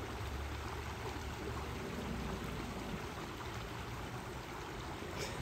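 Shallow stony creek running steadily, a constant wash of flowing water.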